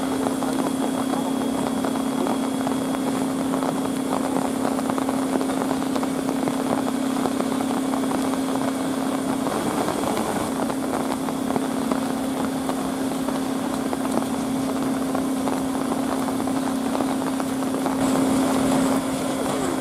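D51 steam locomotive standing at rest under steam: a steady hiss of steam with a constant hum beneath it, growing briefly louder and hissier near the end.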